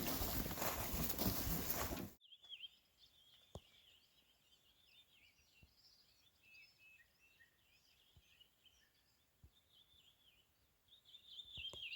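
Loud rustling and footstep-like noise for about two seconds, which cuts off suddenly. Then quiet with small birds chirping and singing.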